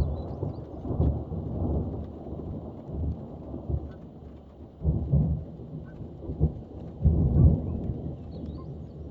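Thunder rumbling in a series of low, uneven rolls, loudest about five and seven seconds in, over rain.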